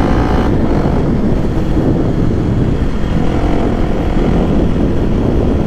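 Motorcycle running on the road, a steady loud rumble of engine and wind on the rider's microphone.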